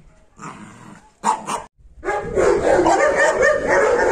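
Dogs vocalising: a few faint short yips in the first half, then, after a brief dropout, loud continuous barking and whining from about two seconds in.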